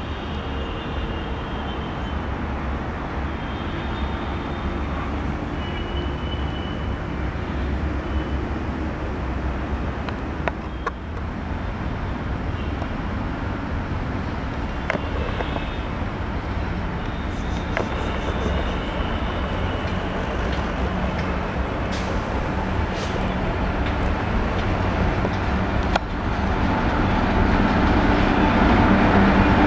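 WAP-4 electric locomotive hauling an express train on its approach: a steady low rumble that grows louder over the last few seconds as it draws close.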